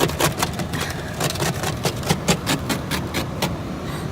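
Car engine idling with a steady low hum, while an ice scraper rasps across the iced-over car glass in quick repeated strokes, about four a second.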